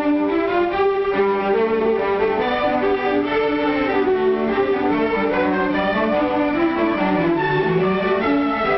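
Orchestral background music led by bowed strings, violins over cellos, playing sustained notes, with a low phrase that dips and climbs again near the end.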